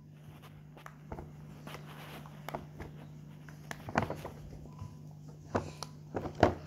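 Scattered soft clicks and taps, the strongest about four seconds in and a cluster near the end, over a steady low hum.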